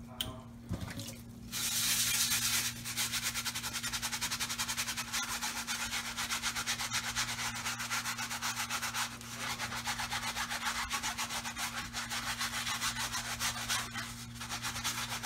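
Small stiff-bristled brush scrubbing a soapy shoe insole in quick, even back-and-forth strokes, about six a second.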